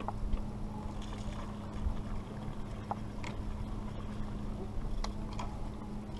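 A charter fishing boat's engine running with a steady low hum, with several short high squeaks scattered over it.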